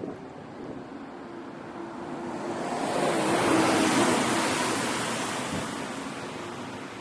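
A vehicle passing on a slushy, snow-covered road: the hiss of its tyres through the slush swells to a peak about halfway through, then fades as it goes by.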